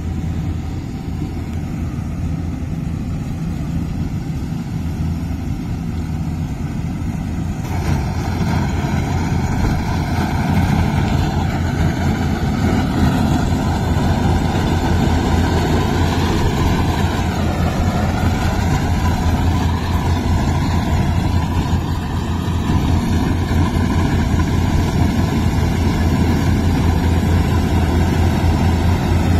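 Farm diesel engine running steadily, getting louder about eight seconds in. Around the middle, a higher whine dips and recovers in pitch.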